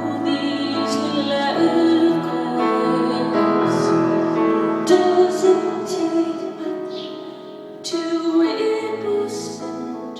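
Woman singing long, held notes over piano, in a live concert performance.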